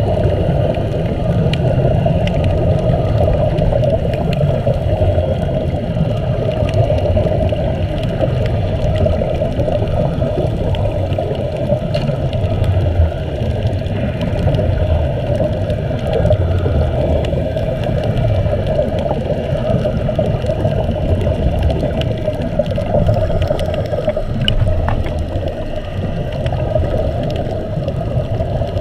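Underwater sound picked up by a submerged camera: a steady, muffled rumble and hiss, with faint scattered clicks.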